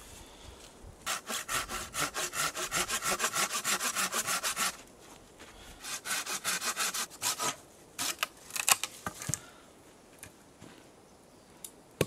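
Small hand saw cutting through a dead branch in quick back-and-forth strokes, about seven a second, for a few seconds. After a short pause there is a second, shorter run of strokes, then a few sharp knocks and cracks of wood.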